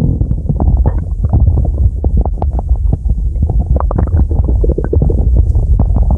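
Stomach growling and gurgling: a continuous low rumble dotted with many quick pops and squelches.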